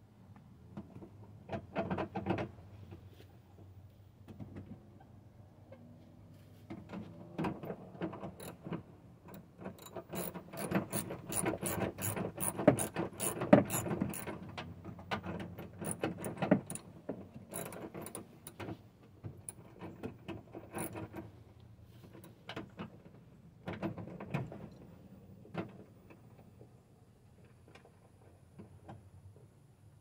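Hand ratchet wrench clicking in bursts as the bolts holding a pickup's door handle are loosened inside the door, busiest through the middle and tapering off near the end.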